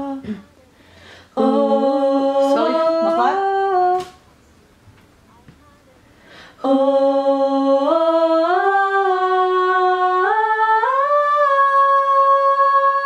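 A woman's voice humming a wordless melody in two phrases. The first is short and rises in small steps; the second is longer, climbing step by step to a long held high note.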